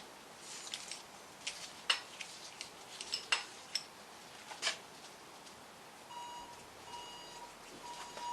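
Light metallic clicks and taps of a spanner and bolts as the timing chain tensioner is unbolted from a classic Mini A-series engine. From about six seconds in, an electronic beep repeats about once a second, which the owner takes for a possible parts delivery.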